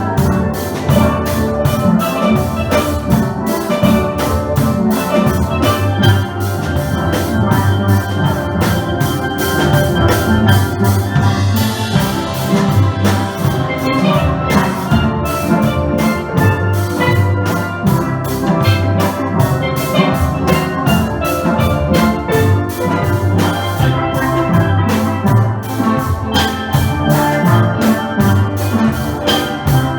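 Steel pan band playing an upbeat Trinidadian party tune: many pans striking a fast, bright melody and chords over a steady drum beat.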